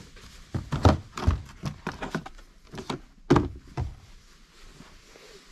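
Irregular thumps and knocks of things being moved about while someone searches for the other sneaker of a pair; the loudest thump comes a little over three seconds in.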